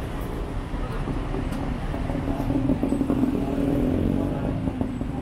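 City street traffic: a steady rumble of vehicles, with one engine running close by and growing louder from about two seconds in, then easing near the end.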